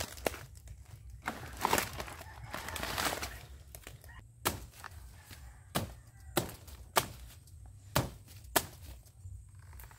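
Machete chopping: six sharp, separate strikes about half a second to a second and a half apart, starting about halfway in.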